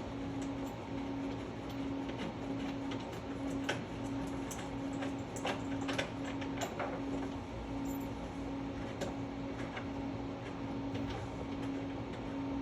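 Scattered metallic clicks and ticks from a hand tool and bolts as the two head bolts of a pinball machine are unscrewed. A low hum pulsing on and off about one and a half times a second runs underneath.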